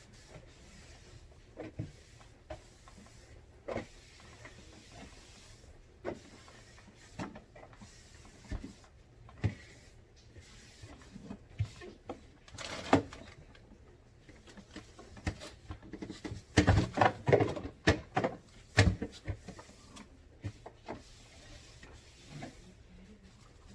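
Scattered knocks and clatters of jars and containers being handled and set down in a refrigerator, with a busier, louder run of knocks about two thirds of the way through.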